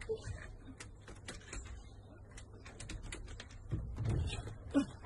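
Irregular light clicks and taps from a large dog shifting about inside a wire exercise pen on wooden decking, with a duller low knock about four seconds in.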